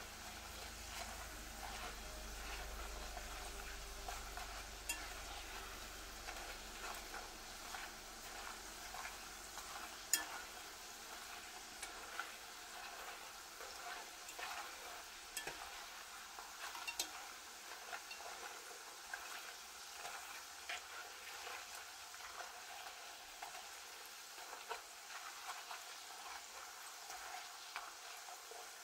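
Plantain slices deep-frying in hot oil, a steady sizzle, with a few sharp clicks as a metal fork turns the slices in the pot.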